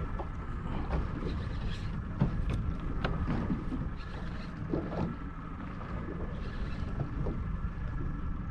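Ambience aboard a small fishing boat on the water: a steady low rumble with wind on the microphone, a faint steady tone, and a few scattered light clicks and knocks.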